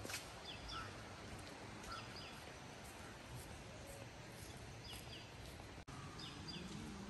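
Small birds chirping: short, high, downward-sliding calls, often in pairs, every second or few over a steady hiss of outdoor background noise. The sound drops out for an instant about six seconds in.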